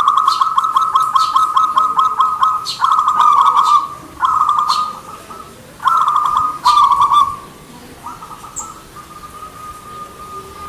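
Zebra dove (perkutut) cooing: a run of phrases made of rapid, pulsing coo notes, broken by short gaps, with the later phrases fainter.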